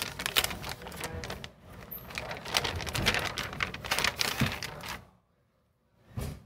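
Anti-static plastic bag crinkling and rustling as a new laptop battery is unwrapped from it. It stops about five seconds in, with one short crinkle near the end.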